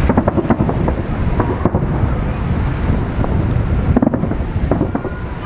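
Wind buffeting the microphone, making a steady low rumble, with scattered light clicks.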